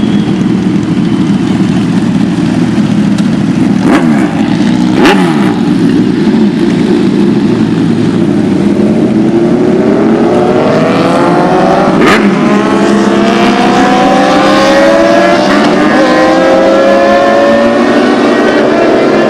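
Car engine sound in traffic: a steady engine drone with two short, sharp sweeps about four and five seconds in. From about halfway an engine's pitch climbs steadily as it accelerates.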